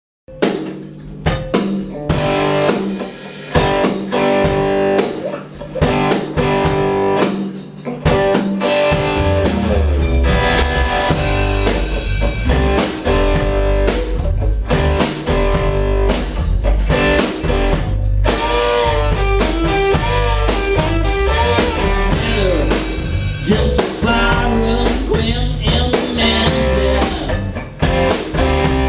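Blues-rock music with guitar and drums, starting sparse; a heavier low end comes in about eight seconds in and the full band plays on.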